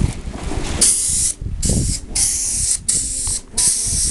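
Gravity-feed paint spray gun spraying a boat's topside in short passes: about five hissing bursts of roughly half a second each, starting about a second in, with brief gaps as the trigger is released.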